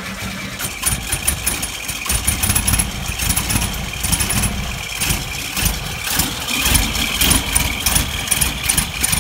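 1968 VW Bay Window camper's air-cooled flat-four engine idling unevenly just after starting, heard at the open rear engine bay, with light rapid ticking over the running. It is ticking over on its own without the accelerator pressed.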